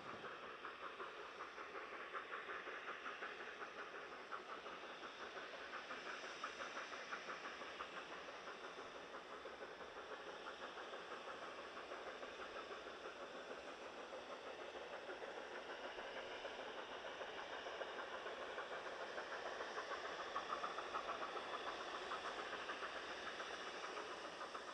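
Narrow-gauge Garratt steam locomotive working hard with a freight train, its exhaust beats coming fast and even with a hiss of steam. The sound is faint and grows a little louder in the last few seconds.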